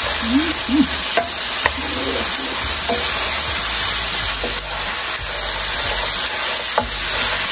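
Sliced onion, celery and minced garlic sizzling steadily in canola oil in a skillet over medium-high heat, with a wooden spoon stirring and knocking against the pan now and then.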